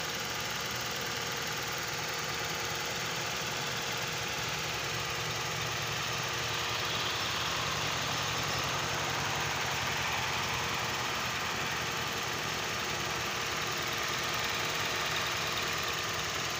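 Toyota Corolla AE101's 4A-FE twin-cam 16-valve fuel-injected inline-four idling steadily, heard close up in the open engine bay. It runs smooth and quiet: normal, with no problem.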